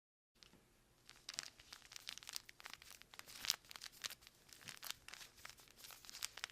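Something being crumpled, giving a dense run of quick, irregular crinkling crackles that starts about a third of a second in.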